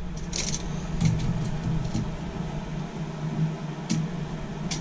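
Steady low mechanical hum, with a few light clicks and knocks of objects being handled.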